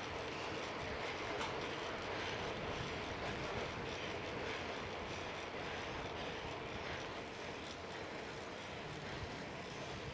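Steady rush of wind and tyre noise from a bicycle riding at speed on a paved road, with no clear changes.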